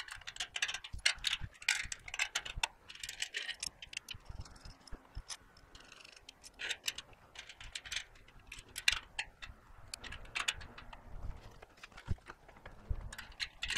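Wrench turning a nut on a bolt at a trailer's gate post, making light, irregular metallic clicks and clinks as a round-stock cable spacer is tightened in place.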